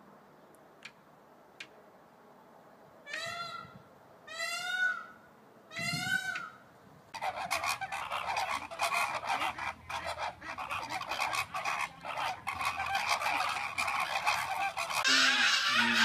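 An Indian peafowl (peacock) calls three times, each a short cry that rises and falls in pitch. Then a flock of flamingos honks and chatters continuously, growing louder and harsher in the last second.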